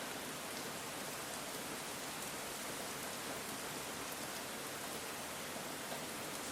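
Steady rain falling on the ground: an even hiss with faint scattered drop ticks.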